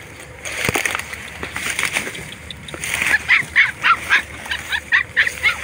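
Young puppies crying: a rapid run of short, high-pitched yelps, several a second, starting about halfway through. Before that, dry grass and reeds rustle.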